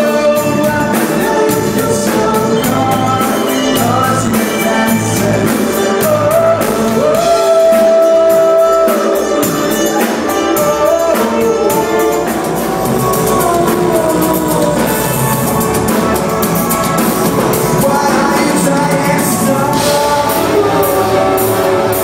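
Live rock band playing: a male lead singer over electric guitars, drums and keyboard, with one note held for a couple of seconds near the middle.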